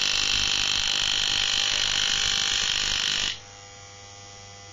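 Opened Moser 1400-type clipper's electromagnetic vibrating motor running with a loud, harsh buzzing rattle, which the repairer puts down most likely to the moving part of the motor striking the body. About three seconds in it drops suddenly to a much quieter, steady hum.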